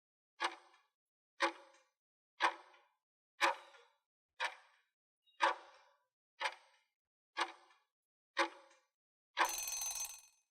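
Quiz countdown-timer sound effect: nine clock-like ticks, one a second, then a longer, noisier sound about a second long as the ten seconds run out.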